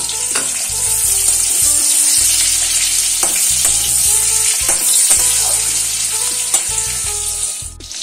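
Sliced raw onion rings sizzling in hot oil in a steel kadai, with a steady frying hiss. A metal spatula stirs and scrapes the pan, giving short strokes every second or so. The sizzle dips briefly near the end.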